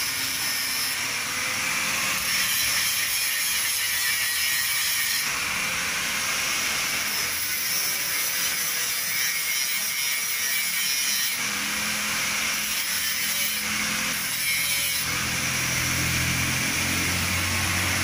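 Handheld electric angle grinder running and grinding a small metal part, throwing sparks: a loud, steady, hissing grind whose tone shifts several times.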